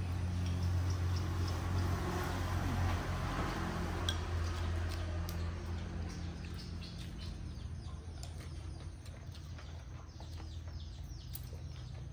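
Outdoor ambience under a steady low hum that is loudest in the first few seconds. In the second half a bird calls in a quick run of short falling chirps, and chopsticks and spoons click now and then against small porcelain rice bowls.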